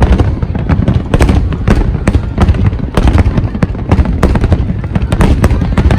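Fireworks display going off in a rapid barrage: many sharp bangs and crackles, two or three a second, over a continuous low rumble.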